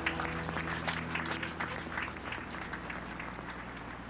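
Crowd of guests applauding, the clapping thinning out and fading away.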